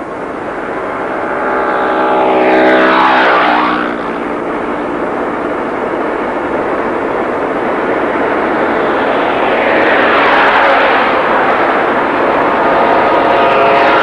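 Steady road noise of a car driving. About three seconds in, a vehicle passes close by, its engine note swelling and then dropping in pitch as it goes. A second rush of a passing vehicle comes about ten seconds in.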